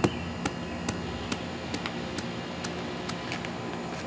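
Sledgehammer head tamping loose cold-patch asphalt into a driveway hole: sharp taps about two a second, the first the loudest, stopping about three and a half seconds in.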